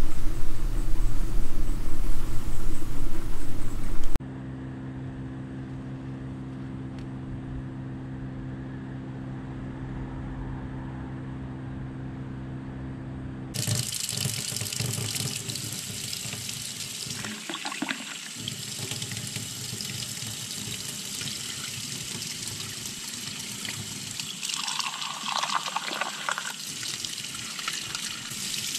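A kitchen tap running into a stainless steel sink and splashing through a small mesh sieve as tomato seeds are rinsed, with a glass of seeds and water poured into the sieve near the end. Before the tap comes on, a loud rushing noise for the first four seconds gives way to a steady low hum.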